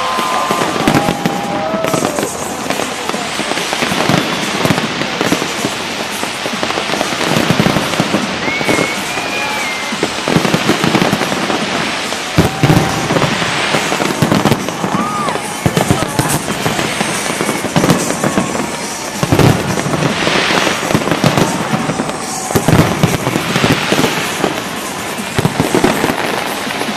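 Fireworks display going off: dense, continuous bangs and crackling, with louder booms standing out every few seconds.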